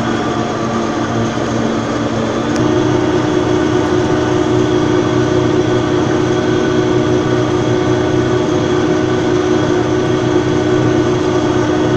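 Tractor engine running steadily. About two and a half seconds in there is a click, and the drone shifts to a higher pitch and gets a little louder.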